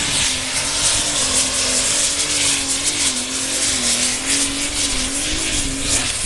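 Super Stock pulling tractor's turbocharged diesel engine running flat out under full load while hauling a weight-transfer sled. It is a loud, steady high-revving note that wavers slightly in pitch, over a heavy rushing roar.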